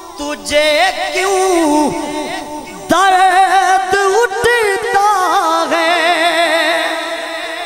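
Male naat reciter singing a drawn-out, ornamented passage into a microphone, his voice wavering quickly up and down in pitch over a steady held drone note. It gets louder about three seconds in.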